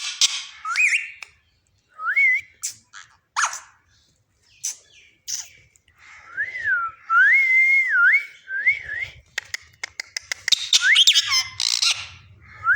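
Pet parrot whistling and squawking: a few short whistles and sharp calls, then a run of wavering whistle notes around the middle, and a burst of harsh squawks near the end.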